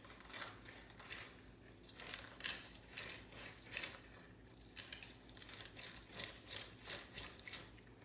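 Lime half pressed and twisted back and forth on a plastic reamer-style citrus juicer, giving faint repeated short scraping rasps, about one or two a second.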